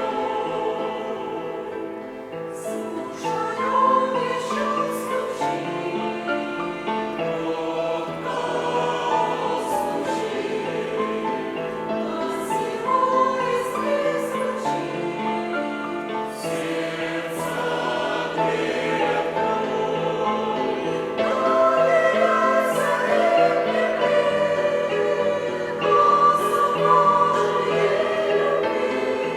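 Church choir singing a hymn in several parts, with long held chords and clear sung consonants.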